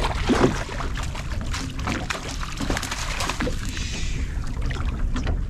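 Water sloshing and splashing around the hull of a small boat, with scattered clicks and knocks.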